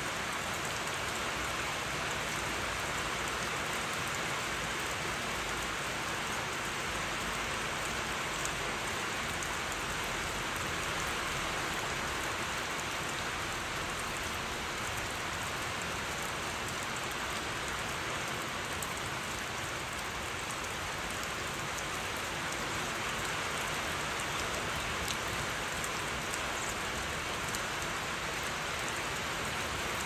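Heavy rain falling steadily: an even hiss of rain on the surroundings, with the odd sharper drop tick.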